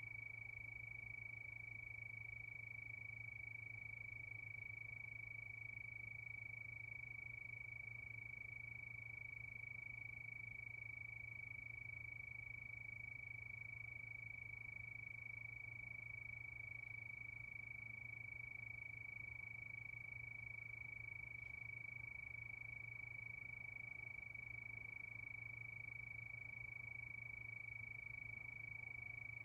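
A cricket chorus trilling in one unbroken, steady, high note that holds the same pitch throughout, over a faint low steady hum.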